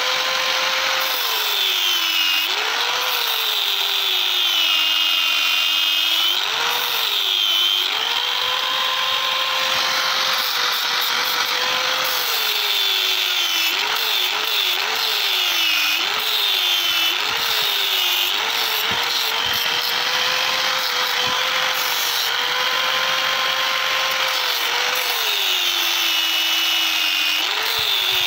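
Angle grinder grinding the edge of a cast aluminium dagger blank: a steady grinding hiss over the motor's whine, which sags in pitch again and again as the disc is pressed into the metal and climbs back when the pressure eases.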